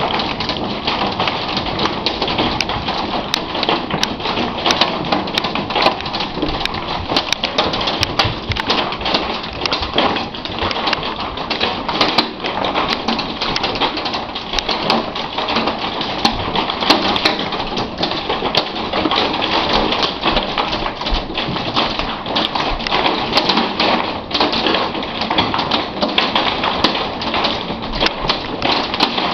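Wind-driven hailstones pelting hard surfaces: a dense, unbroken clatter of countless sharp taps over a steady hiss.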